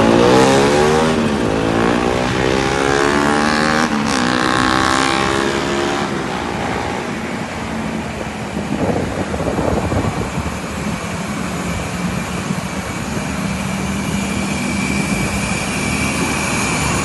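A large bus passes close by with its engine running, its sound sweeping as it goes past over the first few seconds, then fading into steady road traffic noise.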